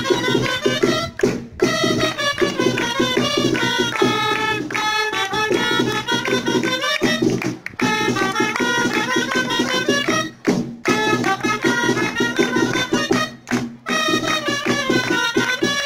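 Festive dance music for a Catalan giant: a quick, high melody of fast-moving notes over a steady drum beat, with a few brief breaks.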